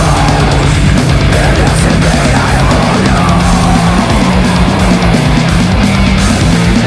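Loud heavy-metal style rock music with a steady, dense sound throughout.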